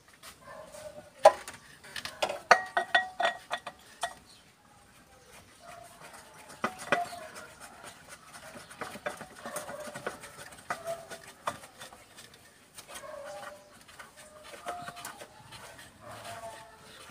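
Metal parts and tools being handled in an engine bay while the engine is off. A run of sharp metallic clinks and rattles starts about a second in and lasts about three seconds, then lighter scattered clicks follow.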